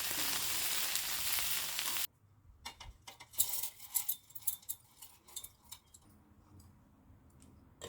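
Food sizzling in hot oil in a frying pan. The sizzle cuts off abruptly about two seconds in, followed by scattered light clicks and clinks, like a utensil against cookware.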